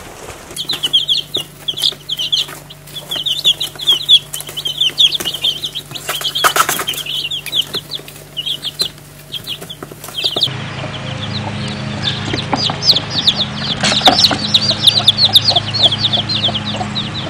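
Young chicks peeping: a constant stream of short, high cheeps over a steady low hum, denser in the second half.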